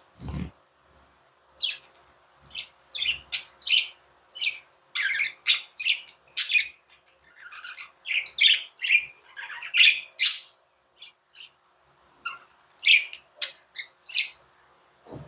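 Pet budgerigars chirping and chattering in a quick, irregular string of short, high calls, with a brief thump right at the start.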